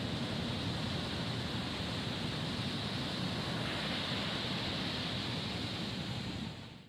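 Heavy ocean surf breaking and washing up a beach: a steady rush of whitewater that fades out just before the end.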